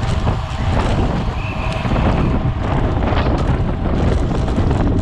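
Wind rushing over the microphone of a bicycle-mounted camera at race speed, a loud, steady rumble.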